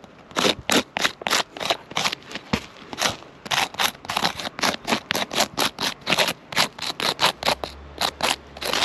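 Quick repeated scraping strokes against asphalt roof shingles, about three or four a second.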